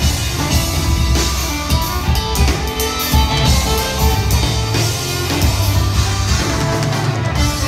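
Live folk-rock band playing a waltz tune: fiddle over electric guitar, bass guitar and drum kit.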